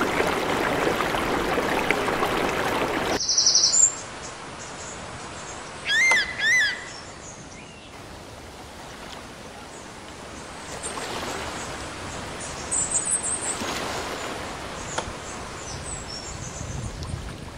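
Steady rushing of flowing floodwater for the first three seconds, which cuts off abruptly to a quieter outdoor background. Birds call over it: a short high trill just after the cut, two loud, sharp calls about six seconds in, and scattered high chirps later.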